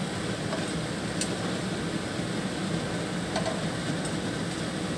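Dal vadas (lentil fritters) sizzling steadily in hot mustard oil in a frying pan as they fry toward brown.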